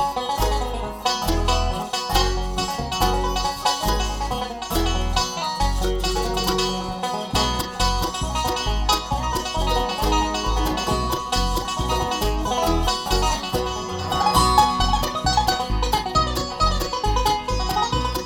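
Bluegrass band playing an instrumental live, a banjo picking a fast lead over guitar and steady bass notes.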